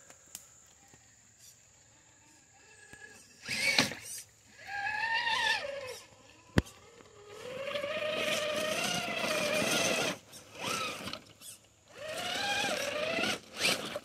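Electric motor and geared drivetrain of a Traxxas TRX-4 RC crawler whining in bursts as the throttle is worked, the pitch rising and falling with motor speed. There is one sharp click about six and a half seconds in.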